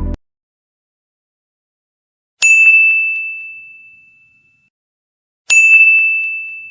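Two identical bright bell dings about three seconds apart, each struck sharply and ringing out over about two seconds. Background music cuts off just before the first.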